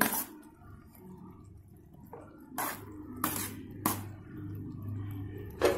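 A spatula knocking against a cooking pot about five times while cooked rice is spread in a layer, over a faint low steady hum.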